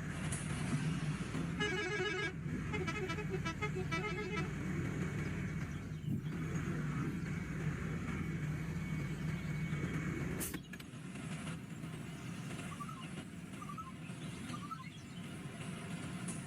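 A motor running steadily with a low hum. A short run of rapid beeping tones comes a couple of seconds in, and a sharp click about ten seconds in, after which it runs a little quieter.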